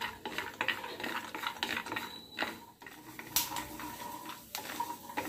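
Raw peanuts being stirred with a spatula in a nonstick pan as they roast in ghee: the kernels rattle and slide against the pan and the spatula scrapes the pan's surface in a run of irregular clicks.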